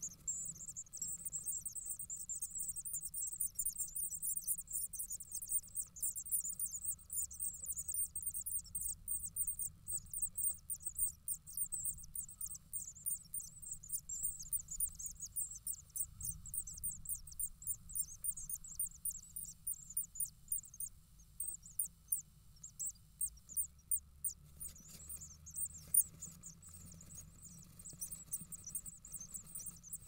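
A brood of great tit nestlings begging for food: a rapid stream of thin, high-pitched cheeping that dies away briefly about three-quarters through, then starts up again.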